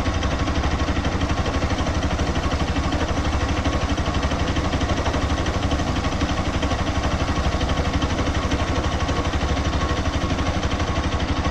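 An engine idling steadily, with an even, fast pulse.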